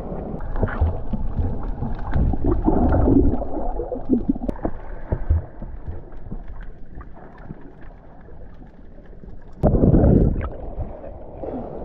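Muffled water sloshing and gurgling through an action camera's waterproof housing during swimming, with a loud rush of splashing and bubbles about ten seconds in as an arm stroke passes the camera.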